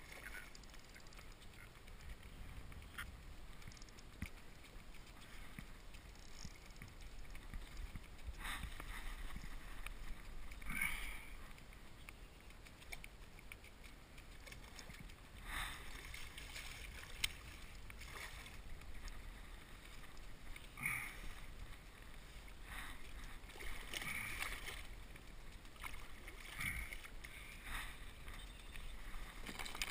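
A hooked fish splashing at the surface beside a kayak in short, irregular bursts, over a low wind rumble on the microphone. One sharp click about halfway through.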